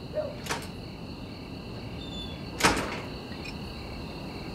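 Crickets chirping steadily. A short knock comes about half a second in, then a louder clack as a van's serving hatch is pushed open about halfway through.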